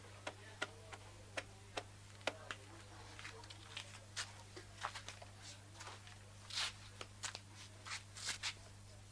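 Burning wood crackling inside a clay tandoor oven that is being heated: irregular sharp pops and snaps, with a couple of short hissing bursts about six and a half and eight seconds in.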